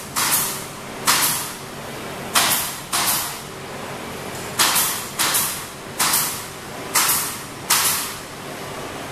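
Sharp bursts of hissing, about nine at uneven gaps of half a second to a second and a half, each cutting in suddenly and fading within about half a second. A steady low hum runs beneath them.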